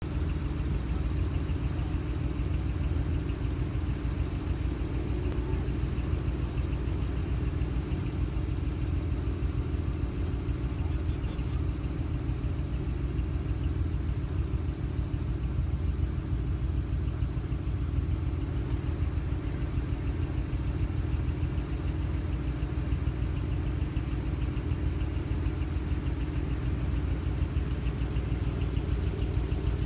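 A line of first-generation Acura NSX sports cars with their V6 engines idling: a steady low engine hum with no revving.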